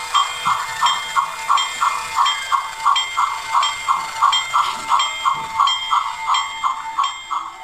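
Recorded steam-locomotive chuffing played through the speaker of a DIY IR-remote sound box for a model train: an even, rhythmic chuff about three times a second over a steady high tone.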